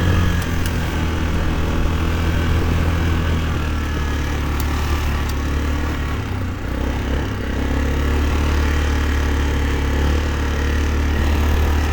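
The single-cylinder four-stroke engine of a 2004 Yamaha Kodiak 450 ATV running steadily while it is ridden, dipping briefly about halfway through. The engine keeps running without stalling.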